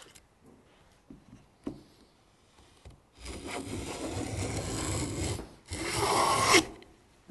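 Wooden rebate plane cutting along a wooden moulding blank in two strokes, its iron shaving the wood: a long stroke of about two and a half seconds from about three seconds in, then a shorter one of about a second. A couple of light knocks come before the strokes.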